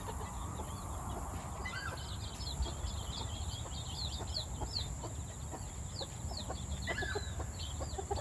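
Chickens clucking and chirping: a busy run of short, quick high calls with a few lower ones among them, over a steady high insect drone.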